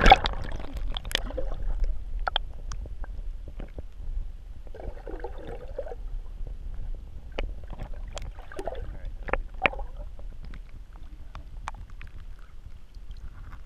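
Muffled water sound from a camera held underwater in shallow water: a steady low rumble with a splash and bubbling at the start, then scattered small clicks and knocks.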